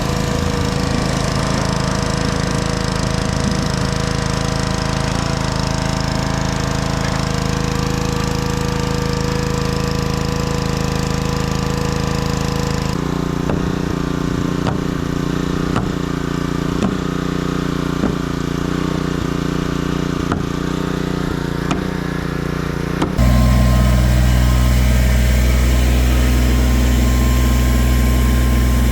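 A motor engine runs steadily at a constant speed, its hum changing abruptly twice, like separate edited shots of running machinery. There are a few faint knocks in the middle stretch.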